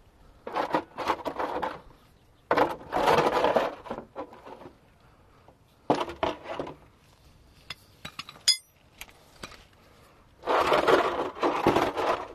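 Socket ratchet on a long extension clicking in four quick bursts as bolts are worked loose on the underside of a Case 4230 tractor. A single sharp metal clink with a brief ring comes between the third and fourth bursts.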